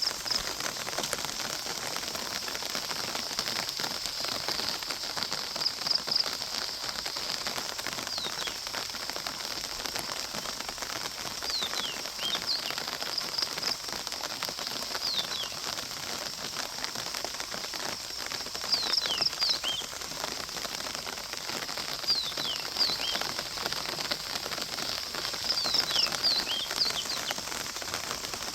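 Steady pattering of rain, with a bird calling in clusters of short falling whistles every few seconds.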